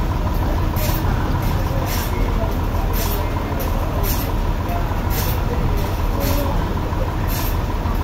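Toyota forklift engine running steadily, with a short high hiss repeating about once a second over the engine.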